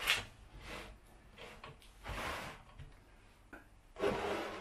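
Plywood offcut pieces being slid and set down on a wooden workbench: a few short scraping and knocking sounds, the longest near the end.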